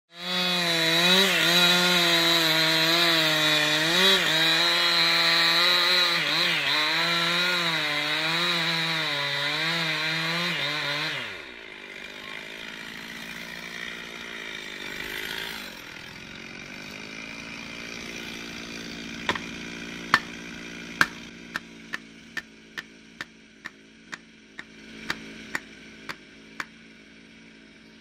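Two-stroke chainsaw cutting into a tree trunk at full throttle, its pitch wavering under load, then dropping to a steady idle about 11 seconds in. Over the idle, from about two-thirds of the way through, comes a run of sharp knocks, roughly two a second.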